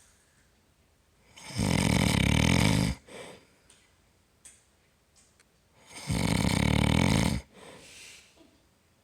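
A man snoring loud: two long, rattling snores about four and a half seconds apart, each followed by a short, softer breath.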